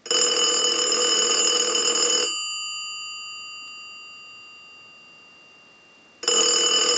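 Stromberg-Carlson 1543 rotary desk telephone's bell ringing on a ring cycle. It rings for about two seconds, the gongs ring on and fade for about four seconds, then the next ring starts about six seconds in. This is the restored phone ringing in properly on its new bell circuit.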